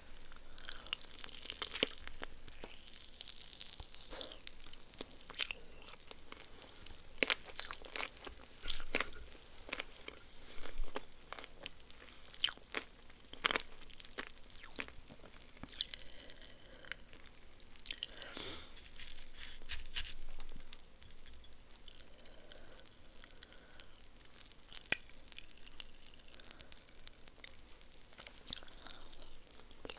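Close-miked crunching and chewing of a green Pop Rocks-coated candy, with sharp cracks scattered throughout. Twice there are spells of fine, fizzing crackle from the popping candy: near the start and about halfway through.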